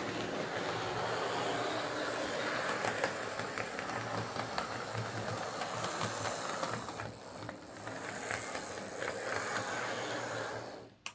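Hornby APT power car chassis with its Ringfield motor running along 00 gauge track: a steady whir with small clicks from the wheels on the rails, until it cuts off near the end. Its motor has been serviced and its front bogey wheels cleaned, and it is running a lot better.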